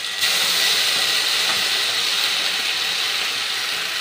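Ginger-cumin paste dropped into hot oil in a wok with whole cumin, dried red chillies and bay leaves, sizzling as it hits the oil. The loud hiss jumps up suddenly a fraction of a second in and then holds steady.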